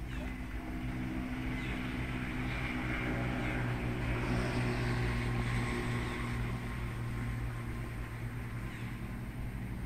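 Distant engine hum, steady and low, growing louder toward the middle and easing off near the end.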